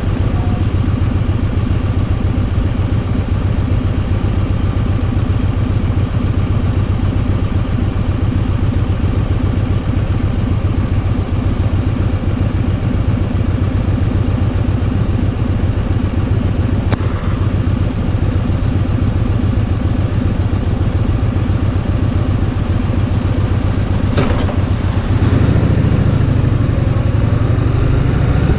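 Kawasaki VN2000's big V-twin engine running steadily under way, with road and wind noise; the engine note grows louder near the end.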